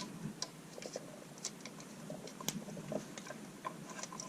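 Faint, irregular small clicks and ticks of a screwdriver turning a wall outlet's terminal screw as a wire is tightened down.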